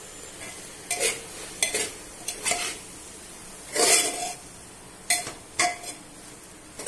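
A metal spoon stirring drumstick leaves and grated coconut in a pressure cooker pot, scraping and knocking against the metal sides in about seven separate strokes, some with a brief ring. The loudest stroke comes about four seconds in.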